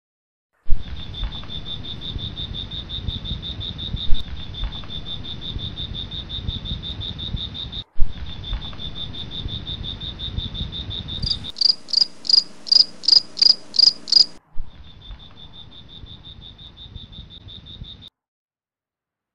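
Crickets chirping at night in a fast, steady, pulsing high trill, over a low rumble with a few sharp knocks. The trill cuts in and out abruptly. About halfway through, a louder, slower call of about nine pulses, three a second, takes over for a few seconds before the quieter trill returns.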